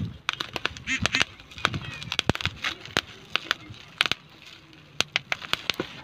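Small bubble wrap bubbles popped between the fingers: a quick, irregular run of sharp pops with the plastic crinkling and squeaking in between.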